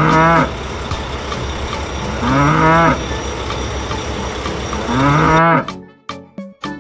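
A cow mooing three times, about two and a half seconds apart, each moo bending in pitch, over a steady background hum. Near the end the hum stops and music with a beat comes in.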